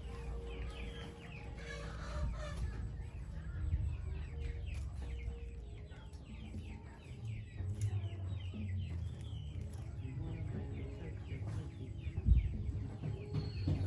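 Chickens clucking and cheeping, with many short high calls following one another throughout. A single thump near the end.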